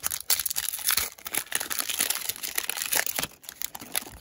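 Shiny foil wrapper of a 2020 Donruss baseball card pack being torn open and crinkled in the hands. There is dense, crackly rustling until about three and a half seconds in, and then it dies down.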